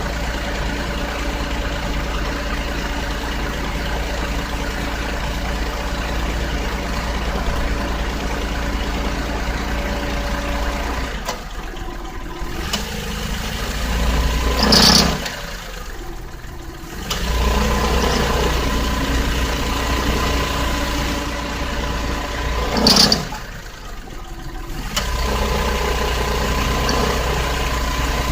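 Nissan Otti H91W's small three-cylinder engine idling in the engine bay, carrying the abnormal noise under investigation, with a thin steady whine over the engine note. Twice, about 15 and 23 seconds in, a short louder sound stands out, with brief dips in the engine sound around it.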